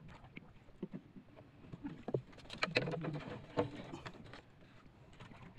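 Water splashing against the hull of a small wooden outrigger boat, with irregular knocks and clatters on the wood, busiest and loudest in the middle.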